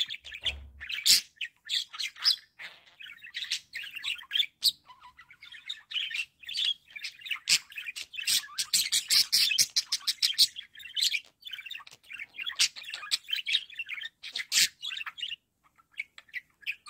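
Budgerigars chattering and warbling: a continuous stream of quick chirps mixed with sharp clicks, pausing briefly near the end.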